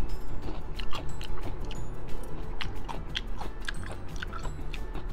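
Crunchy chewing of pickled daikon radish cubes: a quick, irregular run of crisp crunches.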